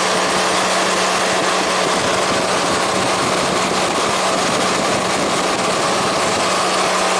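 A 2014 Chevy Silverado V8 idling under its electric radiator cooling fans, which are running near full speed. The sound is a steady, loud rushing noise with an even hum. The fans are commanded high because the engine is overheating: its thermostat is stuck closed.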